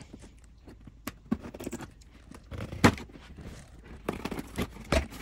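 Scissors cutting open a cardboard box: a run of irregular snips, clicks and short scrapes, the loudest strokes about three seconds in and near the end.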